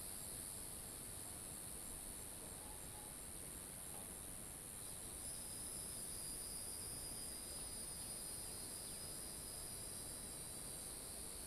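Steady high-pitched insect chorus, with a second, slightly lower insect call growing stronger about five seconds in.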